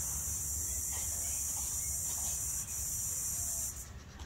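Steady high-pitched insect chorus that cuts off suddenly near the end.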